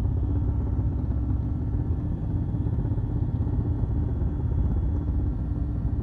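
Steady low drone of an aircraft's engine, heard from on board.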